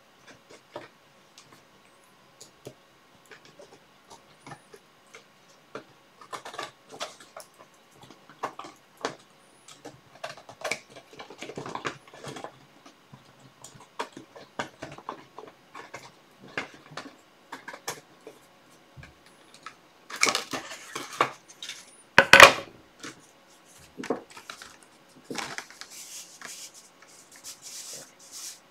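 Scissors snipping through paper with crisp clicks of the blades and rustling of the paper and cardboard mat as a sheet is trimmed to size. About three-quarters of the way through comes a burst of rustling and a sharp knock, the loudest sound.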